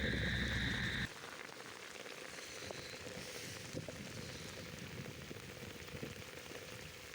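Heavy rain falling steadily, with scattered drops ticking close by. For about the first second a steady high-pitched whine and a low hum sit over the rain, then cut off suddenly.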